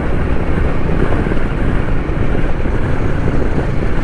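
Steady wind rush on the microphone while riding a Royal Enfield Meteor 350 motorcycle, with the engine and road noise blended in beneath it.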